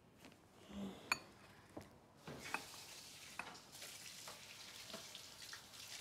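A kitchen tap running, a steady hiss of water, with small clinks and knocks of dishes at the sink. Before the water starts, there is one bright ringing clink of tableware about a second in.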